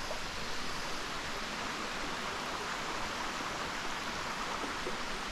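Waterfall water rushing in a steady, unbroken hiss.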